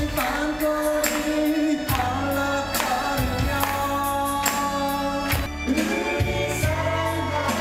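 A person singing a song over a karaoke backing track, with a steady drum beat under the held, sliding notes of the voice.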